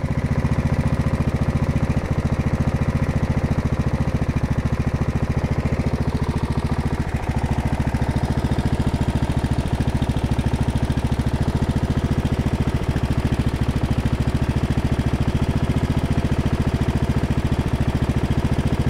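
Craftsman LT1000 lawn tractor's engine idling at minimum throttle, about 1,600–1,700 RPM, on a newly fitted carburettor, its idle set as low as it will go without stalling. The engine note is steady, with an even, rapid firing pulse.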